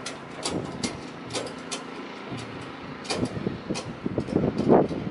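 Clinks, knocks and rattles of metal fence parts being handled during assembly, with a louder clattering stretch about four and a half seconds in.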